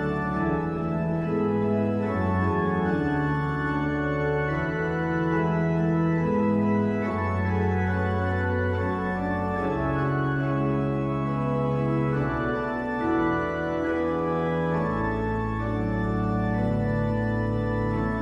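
Organ playing a hymn in slow, sustained chords over a deep bass line, the chords changing every second or two.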